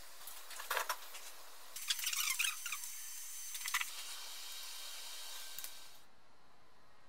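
Light scratching and clicking of a metal timing-belt sprocket being handled and brushed with paint on a workbench, in a few short clusters over a steady hiss that drops away about six seconds in.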